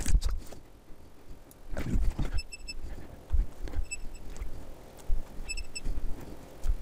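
Maynuo DC electronic load beeping at its keypad presses: short high beeps in small groups of two or three as the load resistance is stepped down, with a few button clicks and knocks at the bench in the first half.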